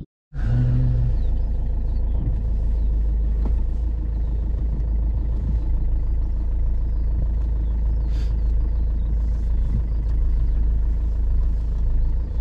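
Land Rover 4x4 driving slowly across rough grassland, heard from inside the cabin: a steady low engine and road rumble.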